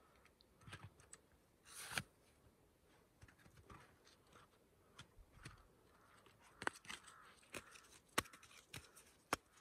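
Faint, scattered knocks and clicks of split firewood sticks being set against each other into a teepee. Near the end there are several sharp clicks and crackles as small dry kindling is handled and broken.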